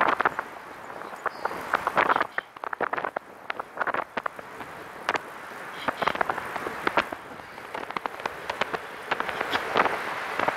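Ride noise from a Catrike 700 recumbent trike rolling along a paved path. Irregular clicks and short rattling bursts, several a second, sound over a steady hiss.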